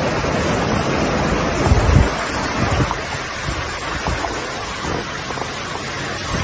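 Rushing floodwater as a steady noise, with wind gusting against the microphone in low rumbles, the strongest about two seconds in.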